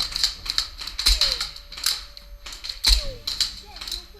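Airsoft skirmish: a quick, irregular run of sharp clicks and snaps from airsoft guns firing and BBs striking, with two heavier knocks about a second and about three seconds in.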